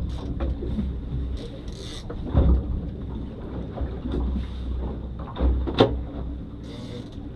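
Wind noise and a low rumble aboard a small boat at sea, with a few scattered knocks and thumps; the sharpest knock comes about two-thirds of the way through.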